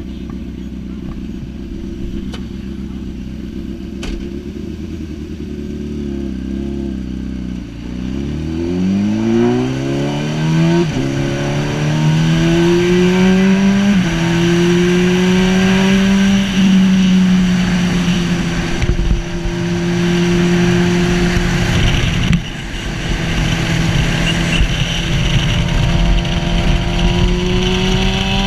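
Racing sidecar outfit's engine idling steadily, then pulling away about eight seconds in. The revs climb through a couple of upshifts and then hold steady at speed, easing briefly and rising again near the end.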